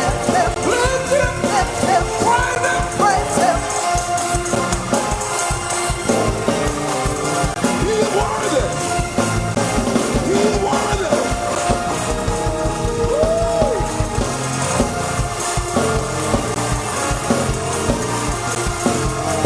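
Live gospel praise-break music with a fast, driving beat and voices singing over the band.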